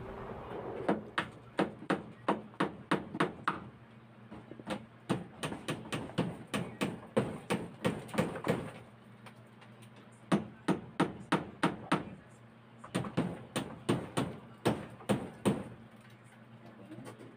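Close-miked chewing of sisig and rice: rapid, sharp mouth smacks and clicks, about three a second, in runs of a few seconds broken by short pauses.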